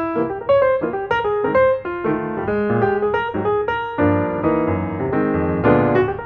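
Background piano music: a light melody of separate notes over chords at a steady pace.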